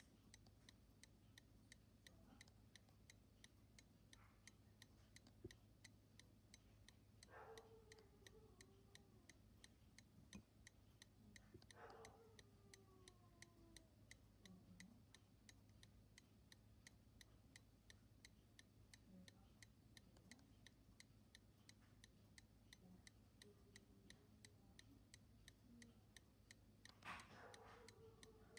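Verge escapement of a brass clock movement ticking: quick, even, faint ticks, about three a second. Three faint falling whine-like sounds come in the background, the last and loudest near the end.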